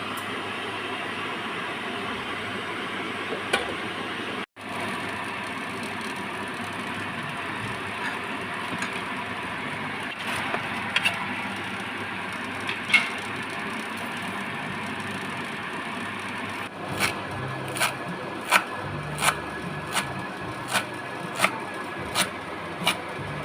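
Kitchen cooking sounds: a steady hiss with scattered clicks, then, about two-thirds of the way in, a run of about ten sharp knocks evenly spaced, roughly one and a half a second.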